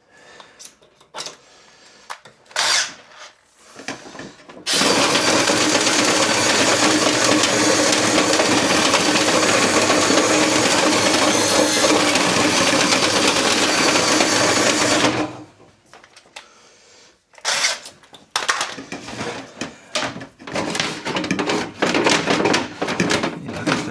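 Power drill spinning a rotary dryer-vent brush inside the vent duct, a loud steady run of about ten seconds that starts and stops abruptly. Scattered clicks and knocks come before and after it as the brush rods are handled.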